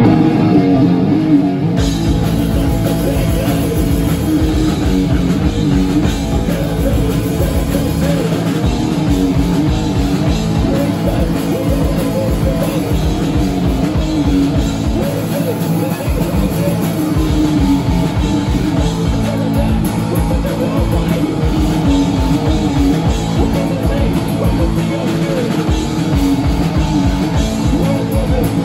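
A hardcore punk band playing live: fast drum kit with distorted electric guitar and bass, and vocals.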